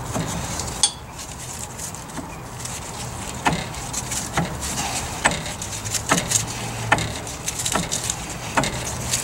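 Metal clinks and knocks, about one a second, as a front brake caliper is worked loose off the disc brake rotor and spindle by hand.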